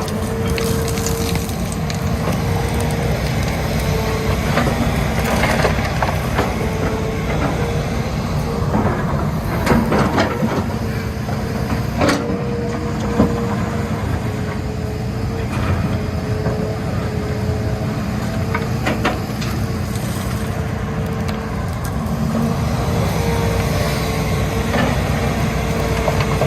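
Hitachi Zaxis 210 hydraulic excavator running under work, its diesel engine giving a steady low rumble with a whine that comes and goes, and several sharp knocks as it handles iron.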